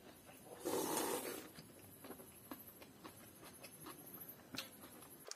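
A loud slurp from a small bowl held to the mouth, about a second in, lasting under a second. After it come quiet eating noises: chewing and scattered small clicks as fingers work food on a plate.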